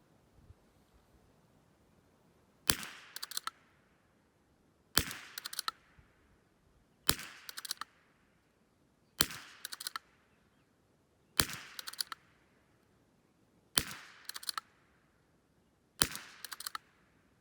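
.22 LR rifle fired seven times at an even pace, about one shot every two seconds, each report sharp with a short echoing tail. A quick cluster of clicks follows each shot.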